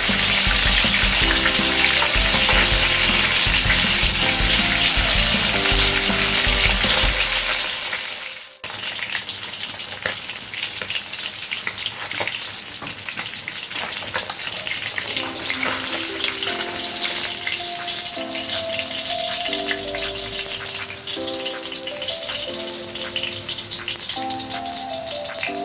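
Whole tilapia deep-frying in oil in a wok, nearly done: a steady sizzle, loud at first, that cuts off abruptly about eight seconds in and carries on more quietly after.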